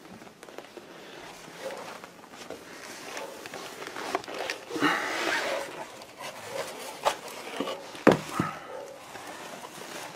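Scattered knocks and rustling in a small room, with a louder sharp knock about eight seconds in.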